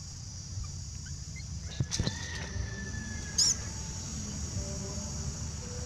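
Outdoor ambience: a steady high insect drone over a low rumble, with a few sharp clicks about two seconds in and a short chirp-like burst past the middle.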